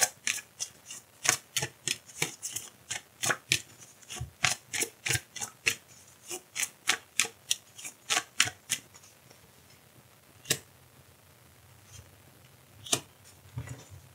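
A deck of oracle cards being shuffled by hand: a quick run of sharp card slaps and clicks, several a second, for about nine seconds. It then gives way to a few single taps as cards are laid on the table.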